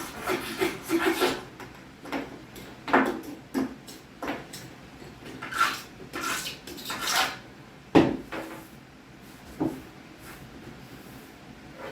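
Stainless steel caulk removal tool scraping and pulling out old caulk in short, irregular strokes, with a sharp knock about eight seconds in.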